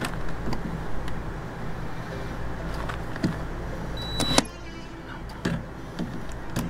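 Electric drill running, its bit boring into a rusted, broken-off screw, with scattered clicks from the bit on the metal. The drill runs steadily, then drops quieter about four and a half seconds in.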